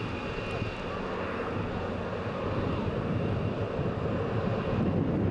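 Twin-engine jet airliner on final approach, its turbofan engines growing louder as it nears. A steady high whine sits over the engine noise and fades after a second or two.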